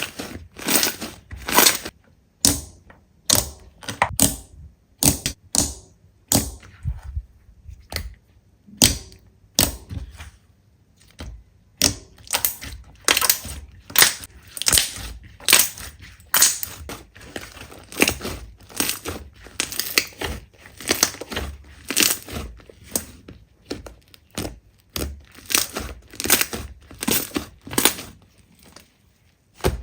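Slime being squeezed and pressed, giving a run of short crackling crunches, often two or three a second, sparser for a stretch early on.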